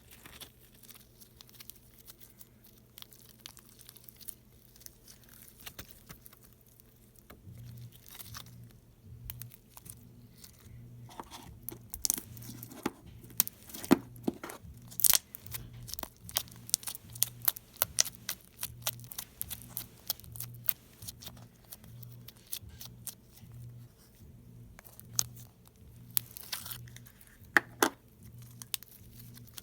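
Slime being squeezed and stretched by hand, giving a run of crackling, popping clicks. The clicks grow denser and louder about twelve seconds in.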